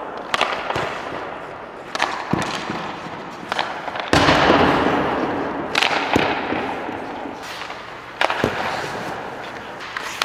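Ice hockey pucks cracking off sticks and a goaltender's pads in an ice rink, about ten sharp cracks, each ringing out in the arena's echo. The loudest comes about four seconds in and is followed by a long noisy rush.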